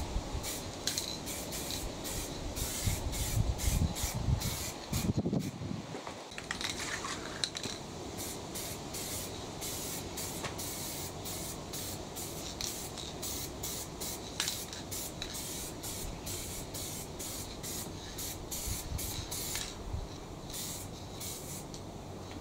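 Spray paint hissing in short repeated bursts, about two or three a second, as a quad frame is painted, with some low rumbling in the first few seconds.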